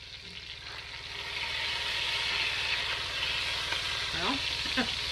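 Boneless, skinless chicken breasts sizzling in hot oil in a Dutch oven, a steady frying hiss that grows louder about a second in.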